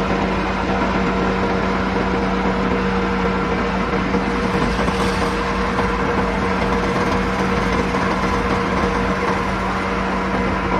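Diesel engine of a heavy earthmoving machine running steadily at one speed, heard from its cab: an even drone with a constant low hum.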